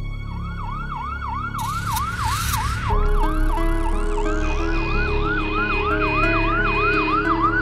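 Ambulance siren in a fast yelp, about three sweeps a second. Under it, a short whooshing swell about a second and a half in, then a steady low synthesizer melody and a long falling tone from about three seconds in.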